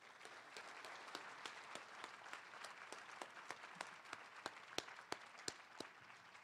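Audience applauding, a dense patter of many hands clapping in a hall. A few louder single claps stand out in the second half, and the applause thins out near the end.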